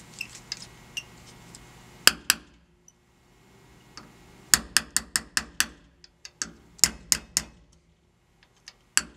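Hammer tapping a steel 1/8 inch pin punch to drive the firing-pin retaining roll pin just below the surface of a rifle bolt held in a vise. The sharp metallic taps come in short runs: two about two seconds in, then quick strings of several taps each, and a last tap near the end.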